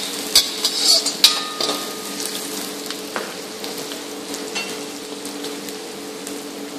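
Chopped garlic, ginger and green chilli sizzling steadily in hot oil in a wok. A metal ladle stirring the pan clinks and scrapes against it a few times in the first three seconds.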